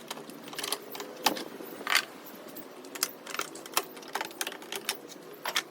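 Plastic engine covers on an Alloytec V6 being unclipped and lifted off, making irregular clicks, snaps and light clatter.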